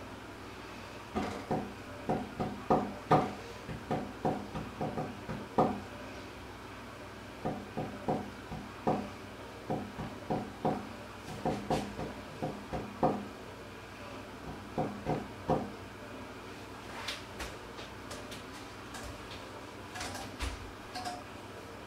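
Irregular clusters of short, dull knocks, several a second, that die out after about 16 seconds, followed by a few fainter, sharper clicks near the end.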